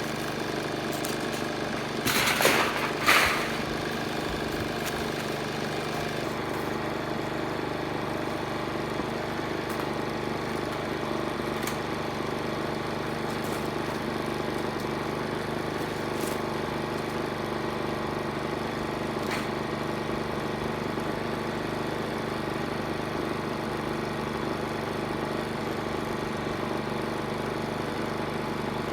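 Small engine running steadily at a constant speed, with two loud knocks about two and three seconds in.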